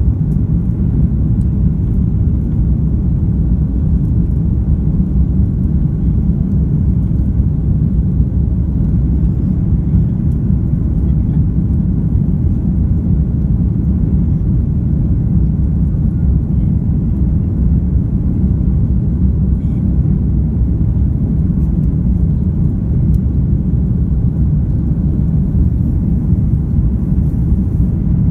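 Steady low rumble of an Airbus A330-300's engines and airflow heard inside the passenger cabin during the climb after takeoff, even and unchanging throughout. The engines are Rolls-Royce Trent 700 turbofans.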